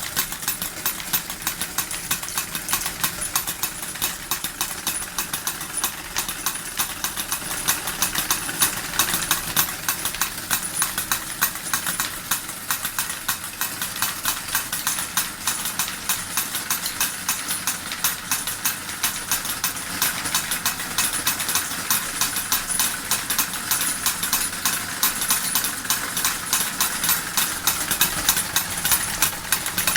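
Model steam engine (the D21) driving two miniature forging hammers, which clatter in a rapid, even rhythm, with a thin steady high tone over the clatter.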